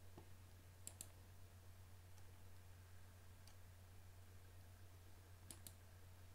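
Faint computer mouse clicks: a pair about a second in, a single one in the middle, and another quick pair near the end, over a low steady hum.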